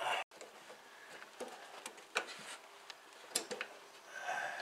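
A handful of faint, light clicks and taps as metal fuel lines are handled and pressed into a holder and rubber grommet, with some hand rustle.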